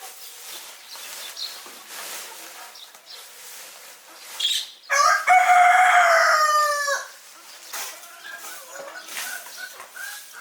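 A rooster crows once, a single loud call about two seconds long near the middle, dropping in pitch at the end. Chickens cluck softly before and after it.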